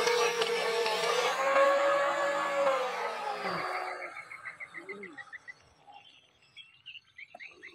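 Radio-controlled model speedboat's motor whining at speed over the hiss of its spray, the pitch falling and dying away about three and a half seconds in as the boat slows. Rapid trains of high chirping frog calls follow.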